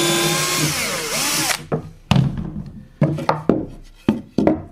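Cordless drill pre-drilling a hole through wood, running steadily, then winding down in pitch and stopping about a second and a half in. After it come about six sharp knocks of the wooden piece and clamps being handled.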